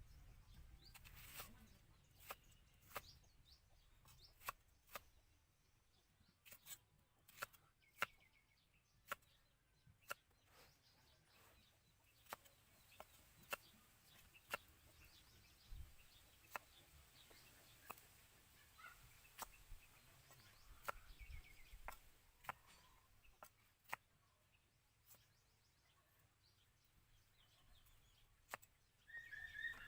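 Scattered sharp taps or clicks at an uneven pace, with faint chicken clucking in the background.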